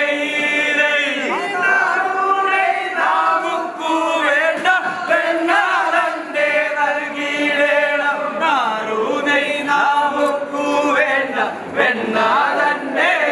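Men singing together in a chant-like chorus: vanchipattu, the traditional boat song of the snake-boat oarsmen, sung at the table during the feast. The melody rises and falls in long held lines.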